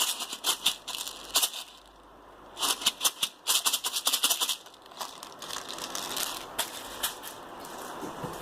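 Plastic airsoft BBs rattling in their container as it is shaken, in two spells of rapid rattling.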